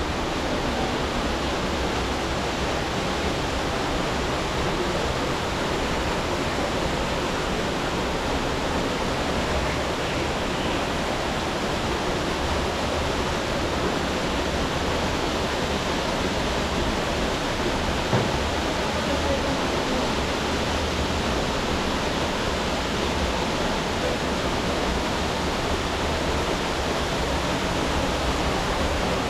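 River water rushing steadily, an even noise without let-up. One brief knock about two-thirds of the way through.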